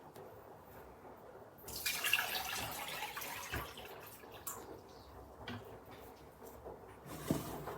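Water splashing, starting about two seconds in and fading over a couple of seconds, followed by a few scattered clicks and a knock near the end.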